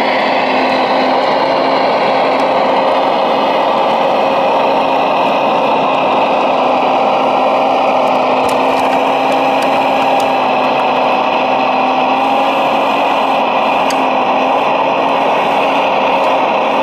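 Radio-controlled Liebherr 970 model hydraulic excavator running: a steady electric whine from its hydraulic pump and track drives, its pitch drifting slightly as it crawls up a ramp onto a low-loader trailer.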